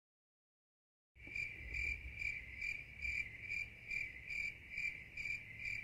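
Dead silence for about a second, then crickets chirping steadily, about two and a half even chirps a second, at a low level. It is the comic cricket sound effect that marks an awkward silence.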